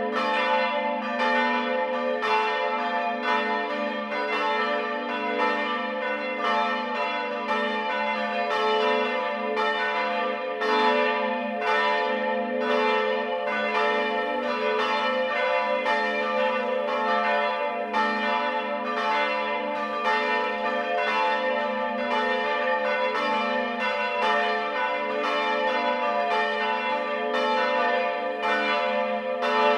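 Church bells ringing together in a full peal, their strikes overlapping in a steady, uneven rhythm of roughly two a second over a continuous ringing hum.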